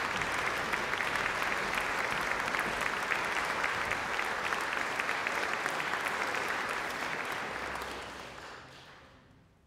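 Audience applauding, a dense steady clapping that dies away over the last two seconds.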